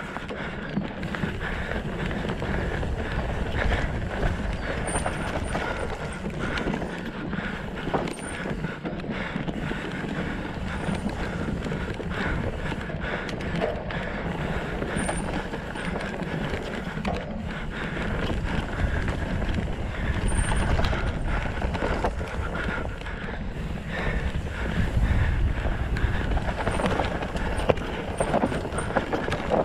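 Mountain bike descending a dirt singletrack at race pace: tyres rolling over dirt and roots and the bike rattling and clattering, as a steady rushing noise throughout.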